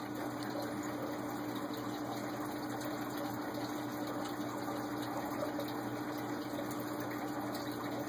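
Steady, even background hiss with a faint constant low hum, unchanging throughout; no distinct event stands out.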